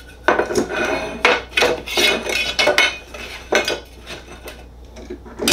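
Piece of aluminum knocking and scraping against a workbench top and a metal hold-down clamp as it is positioned and clamped down: a run of light metallic clatters and clunks.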